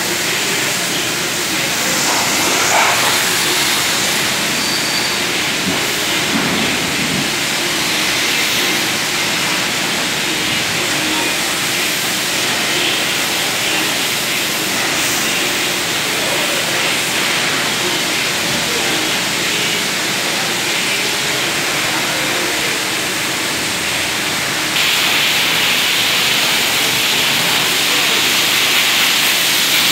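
Pressure-washer jet spraying water onto a car, a steady hiss. About 25 s in it gets louder and brighter as the spray comes closer.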